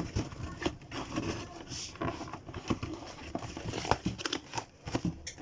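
Irregular taps, knocks and rustling as a cardboard shoe box is handled.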